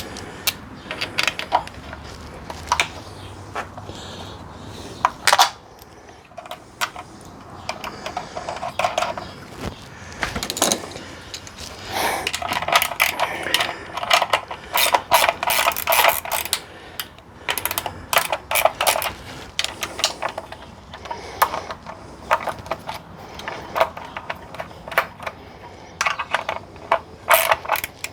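Hand ratchet wrench clicking in quick runs while the motor-mount bolts are worked in, with scattered metal clinks and knocks in between.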